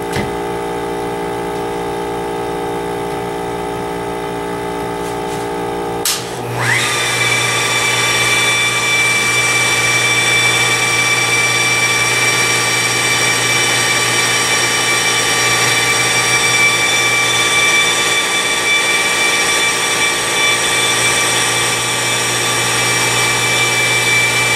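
Flex wet polisher spinning a 1000-grit NSI diamond pad over a water-fed quartz countertop, a steady motor whine. About six seconds in it switches abruptly to a louder, higher-pitched whine that then holds steady.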